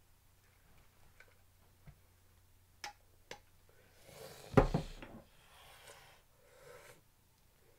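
Small objects handled close to the microphone: two light clicks, then a heavy knock a little past halfway with rustling around it, and softer rustling after.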